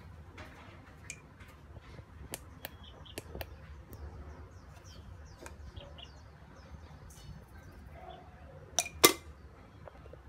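Kitchen handling sounds while salting raw pork in a stainless steel bowl: small clicks and taps of a plastic spoon and salt jar, then two sharp knocks close together about nine seconds in, the loudest sounds.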